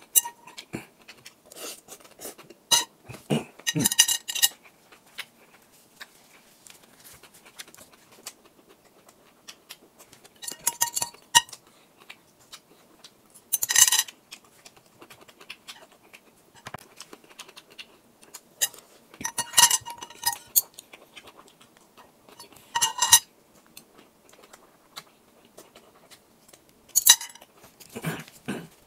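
Metal spoon and chopsticks clinking and scraping against a glass bowl, in short clusters of sharp, ringing clinks a few seconds apart.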